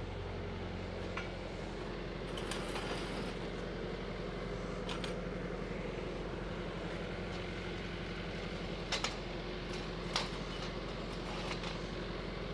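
Steel pipe clinking and knocking against steel pipe stands as it is handled, a few scattered sharp strikes with the loudest pair about three-quarters of the way through and another a second later, over a steady low mechanical hum.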